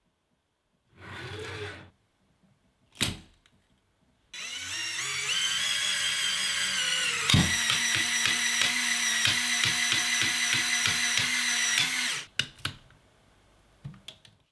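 A LEGO train's small electric motor and gear train whine up to speed as the magnet-fitted train climbs a near-vertical track. A knock comes about halfway through, then a steady whine with a rapid clatter of gears until it cuts off near the end. Before the motor starts there is a short handling noise and a sharp click, and a few light clicks follow after it stops.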